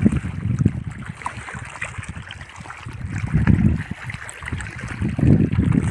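Uneven low rumbling of wind buffeting the microphone over running river water, swelling about three and a half seconds in and again near the end.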